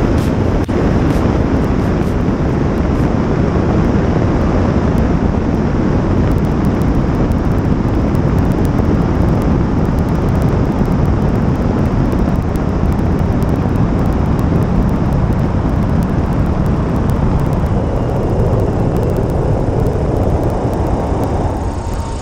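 Wind rushing over a camera mounted outside a Cessna 152 in flight, mixed with the steady running of its engine and propeller. The sound holds steady and dips slightly near the end.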